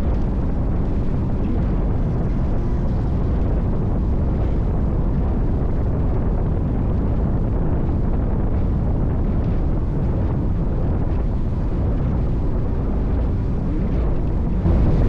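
NITRA 22 race boat's V8 engine running hard at speed, mixed with heavy wind rumble on the microphone. The sound is steady and gets a little louder near the end.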